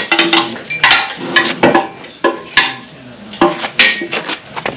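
Metal clanking from a shop engine crane being slid into place, its chain and hook rattling: a quick, irregular run of about ten sharp clinks and knocks, some ringing briefly.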